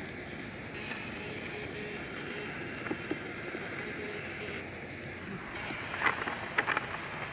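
Steady rush of water flowing in an irrigation channel. Grass rustles and footsteps click about six to seven seconds in.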